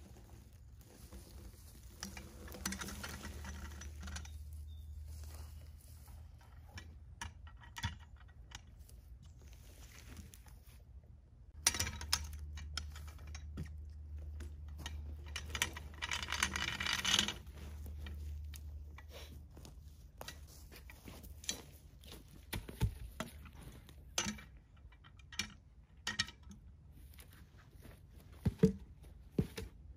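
A log being levered and rolled with a cant hook on dry, grassy ground: scattered wooden knocks, scrapes and the clink of the steel hook, with rustling footsteps in dry grass. A low rumble comes and goes, loudest in two stretches, and the sharp knocks are most frequent near the end.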